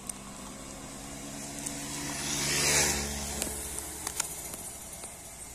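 A road vehicle passing close by: its engine hum and tyre hiss swell to a peak about three seconds in, then fade. Light clicks and crinkles of aluminium foil lids being pulled off takeaway containers come and go.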